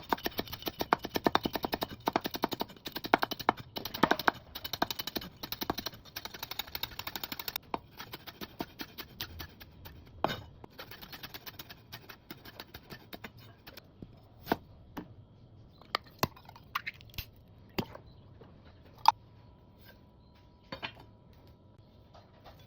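Kitchen utensil clicking and tapping while food is prepared: a fast, dense run of light clicks for about eight seconds, then slower, scattered single taps.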